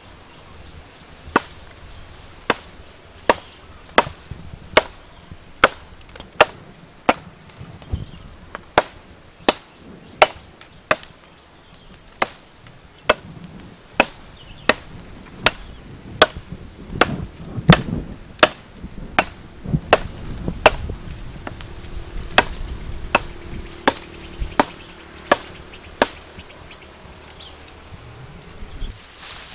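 Steady chopping into a small tree trunk with a blade, one sharp blow a little more than once a second, about thirty in all; the blows stop near the end.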